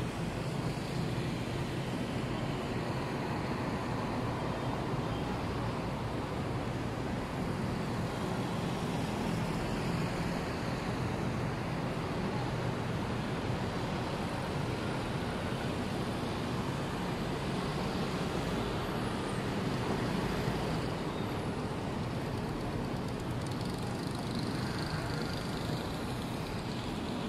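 Steady city street traffic: cars passing below with a continuous low hum of road noise.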